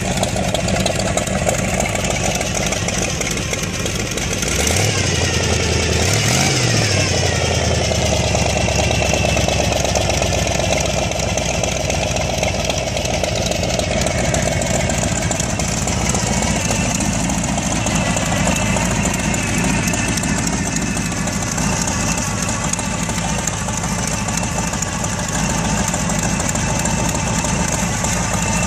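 The hot rod's V8 engine idling through open exhaust headers, loud and steady, with a brief rev that rises and falls back to idle about five seconds in.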